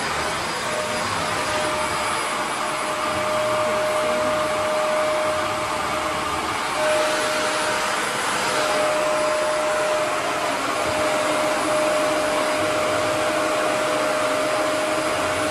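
Shark Navigator Anti-Allergen Plus upright vacuum cleaner running as it is pushed over carpet: a steady rush of air with a constant motor whine.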